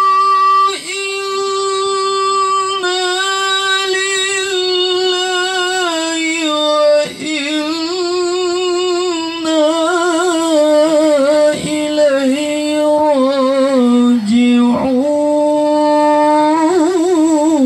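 A man reciting the Quran in the melodic tilawah style of a qari: long held notes with wavering, ornamented runs, broken off briefly a few times for breath, and sinking to a lower held note near the end.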